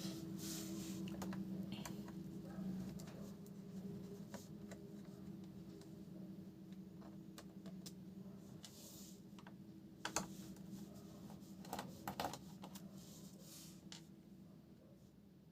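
Scattered light clicks and a few brief scrapes of small hard plastic and metal parts being handled, over a steady low hum.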